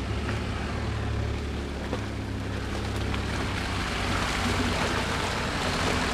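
Jeep Wrangler engine running steadily as it drives toward the camera through a muddy, water-filled track, with the splashing of its tyres growing louder toward the end.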